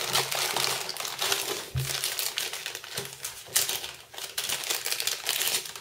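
Thin plastic packaging crinkling and rustling as hands work it open, with a few sharper crackles among it. It stops abruptly at the end.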